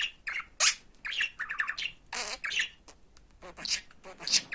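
Pet budgerigar chattering in its talking voice: a quick run of short, high, raspy bursts, the bird's imitation of spoken words mixed with squawks.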